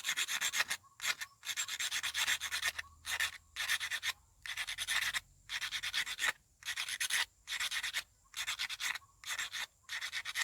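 Sandpaper rubbing back and forth in quick strokes on the metal contact of a Maruti 800 distributor rotor, with brief pauses between runs of strokes. It is scrubbing off built-up carbon and rust that makes the spark come and go and the engine misfire.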